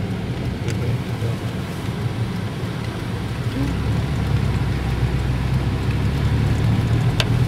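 Steady running noise of a car on the move: a low engine hum under a constant road hiss.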